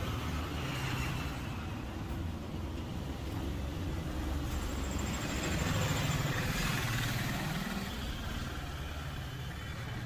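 Street traffic: a motor vehicle's engine running with a steady low rumble, swelling slightly about six seconds in.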